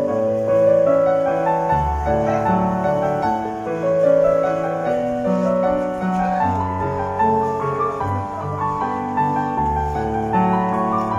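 Background music: a piano-like keyboard melody over sustained low bass notes.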